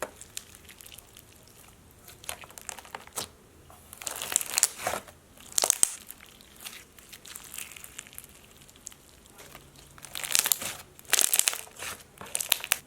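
Crunchy slime packed with slushy beads and fruit cane slices being squeezed and pressed by hand. It gives dense crackling crunches in several short bursts, with quieter squishing between them.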